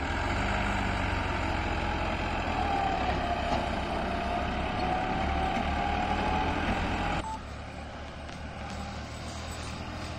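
Massey Ferguson 260 Turbo diesel tractor engine working hard under a heavy trolley load, with a wavering whine riding over the engine. About seven seconds in the sound drops suddenly to a quieter, more distant tractor engine.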